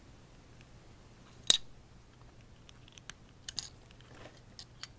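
Small plastic LEGO pieces clicking as they are handled and pressed together. One sharp snap comes about a second and a half in, then a scatter of lighter clicks near the end.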